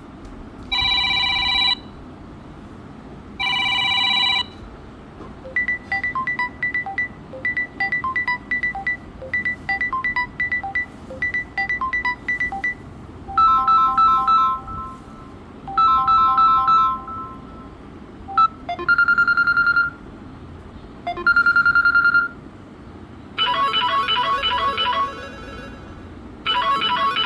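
Samsung Galaxy A03 ringtones playing one after another: several different short electronic melodies, most of them heard twice in a row. One is a longer repeating run of short notes. Brief gaps of faint hiss fall between the melodies.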